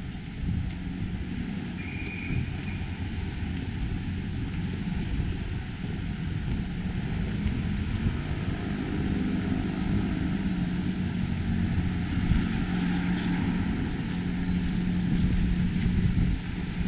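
Street traffic: a vehicle engine runs with a steady low hum that grows stronger from about halfway through. A short high tone sounds about two seconds in.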